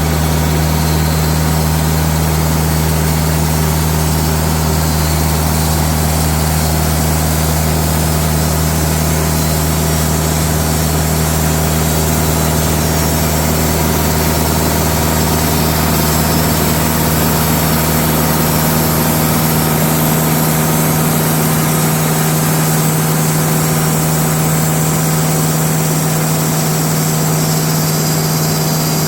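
TimberKing portable band sawmill running steadily as its band blade makes a slow cut through a white pine slab. The mill's engine drone is steady, and its deepest part thins out about two-thirds of the way through.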